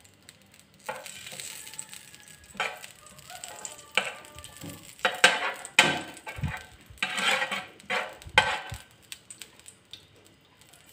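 A steel spoon scraping and tapping across a hot non-stick pan in irregular strokes, spreading melting ghee, with light sizzling.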